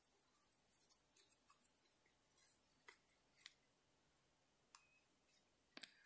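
Near silence with faint, irregular clicks and rustles of a metal crochet hook working yarn through stitches.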